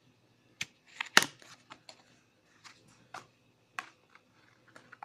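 Paper envelope being handled and opened by hand: scattered crinkles and taps of paper, the sharpest about a second in.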